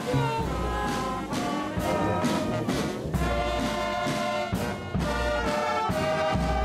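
Marching brass band playing, with trombones and trumpets holding notes over a steady drum beat.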